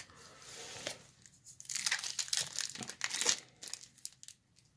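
Plastic wrapper of a Topps baseball-card pack crinkling as it is handled: a faint crackle in the first second, then louder irregular bursts of crinkling from about one and a half to three and a half seconds in.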